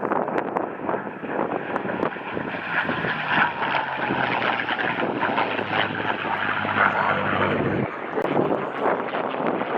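Goodyear FG-1D Corsair's Pratt & Whitney R-2800 radial engine and propeller running as the fighter flies past, a loud steady drone with wind on the microphone. The low engine tone stops abruptly about eight seconds in.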